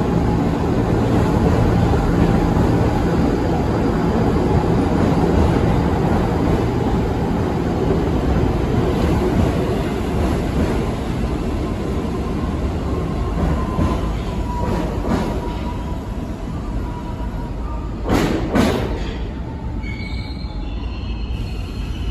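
New York City subway train running along the station track with a steady, heavy rumble that slowly fades. A faint high wheel squeal comes in about halfway through, and two sharp knocks sound a little later.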